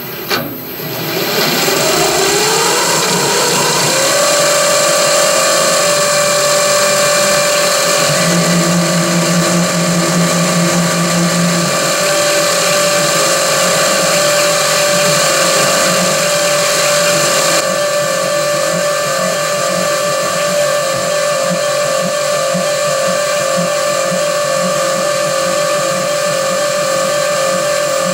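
CNC milling machine spindle spinning up, its whine rising over the first few seconds and then holding steady. It is driving a Cratex rubber-abrasive point that spots an engine-turned pattern into stainless steel sheet. A lower hum joins in briefly about eight seconds in.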